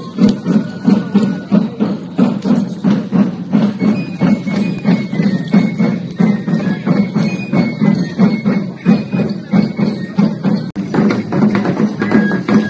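Pito and tambor, a small flute and a drum, playing dance music. A steady drumbeat runs throughout, with a high flute melody over it that is clearest from about four seconds in.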